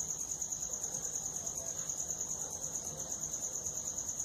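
A cricket chirping steadily: a high, even pulsing trill at about ten pulses a second.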